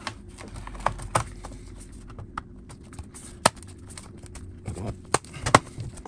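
Sharp, separate clicks and taps from the aluminium bottom case of a MacBook Pro being pressed down into place by hand, about five over several seconds, the loudest about three and a half and five and a half seconds in.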